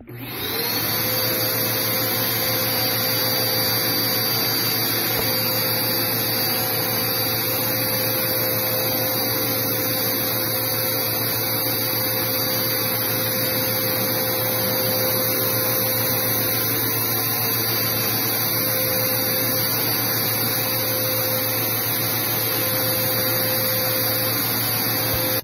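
Dirt Devil Power Duo upright vacuum switched on, its motor spinning up within half a second to a steady whine over a rushing of air. It runs evenly, then stops abruptly at the very end.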